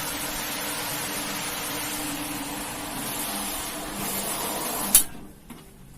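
A machine running with a steady hiss and hum, cut off with a sharp click about five seconds in.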